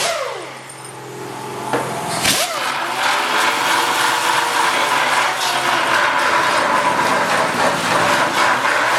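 A power grinder starts up about two seconds in and then runs steadily, grinding old repairs and damage off a fiberglass bumper.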